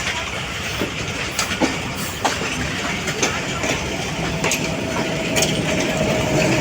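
Passenger train running on the track, its wheels clacking irregularly over rail joints. About four seconds in, a thin steady squeal joins the rumble.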